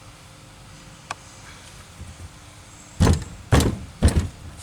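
A light click about a second in, then three loud, short bangs about half a second apart near the end, from hands-on work taking apart the injection pump.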